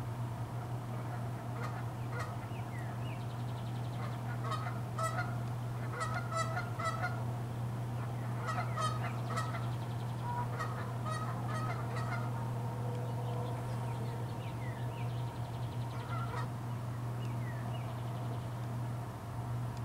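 Clusters of short honking animal calls, repeated in quick runs for much of the first half and a few more later, over a steady low hum.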